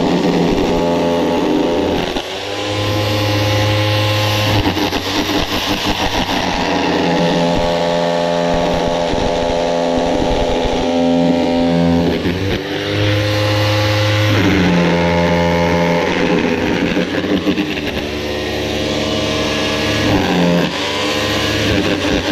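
Handheld electric power tool working into a concrete block wall, its motor whine dipping in pitch and recovering every few seconds as it bears into the block and eases off.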